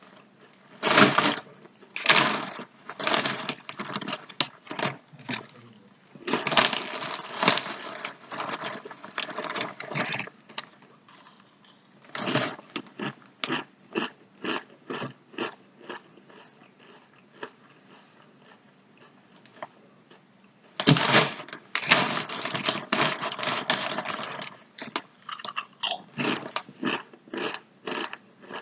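Someone chewing Sun Chips (crunchy multigrain chips), a steady run of crisp crunches with louder, denser bouts of crunching now and then.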